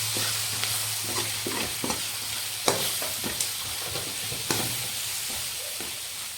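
Onion-tomato masala with ground spices sizzling in a pan while it is stirred, the stirring tool scraping and knocking against the pan now and then over a steady frying hiss.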